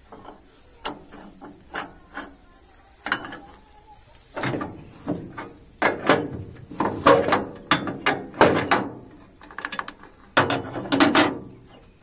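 Steel roller chain clinking and clattering against its sprocket as it is handled and fitted on the harvester's drive, in irregular short runs of metal-on-metal clicks that grow louder and busier in the second half.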